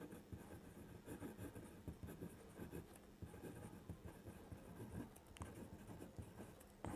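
Pen writing on paper: faint, irregular scratching strokes of handwriting.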